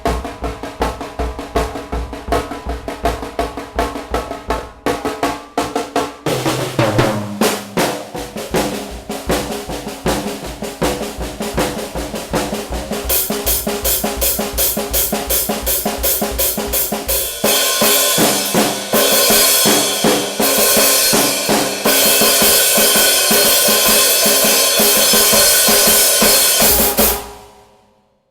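Drum kit played fast, kick and snare strokes in quick succession, with a low falling fill about six seconds in. Cymbals wash continuously over the beat from about the middle, growing louder in the second half, and the playing stops suddenly near the end.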